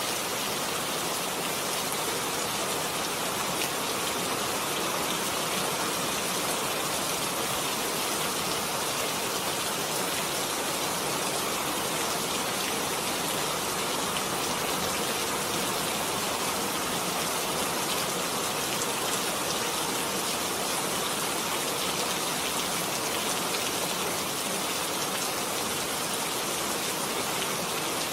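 Steady rain falling, a continuous even hiss of many drops.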